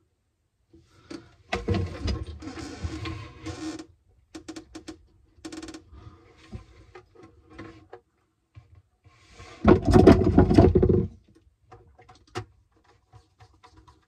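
Handling noise of alarm wiring work: rustling and rubbing of a bundle of thin alarm cables and short clicks against the plastic panel, with two longer bursts of rubbing, the louder about ten seconds in.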